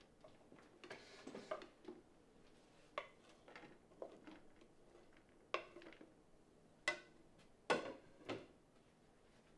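Serving utensils clinking and scraping against plates and a serving platter as food is dished out: a string of separate clinks, a few sharper ones in the second half.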